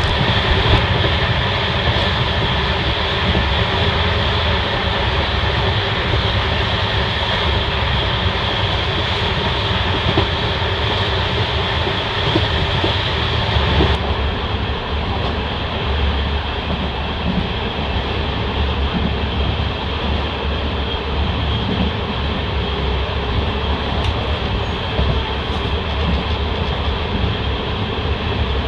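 Passenger express train running along the track: a steady rumble of wheels on rail with a few faint clicks, the high hiss thinning out about halfway through.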